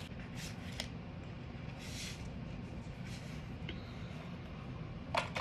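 Soft rustling and scraping of small cardboard packaging as a nail-file box is handled and opened, with a light click partway through, over a steady low background hum. A brief, sharper sound comes near the end.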